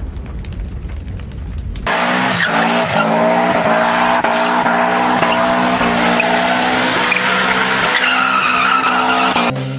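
A low rumble for about the first two seconds, cutting off suddenly. It is followed by a race car engine running hard at a steady pitch that glides up and down, with tyre squeals.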